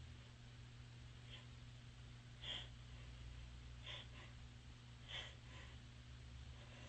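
A person sniffling with a runny nose: a handful of short, faint sniffs a second or so apart, the loudest about two and a half seconds in.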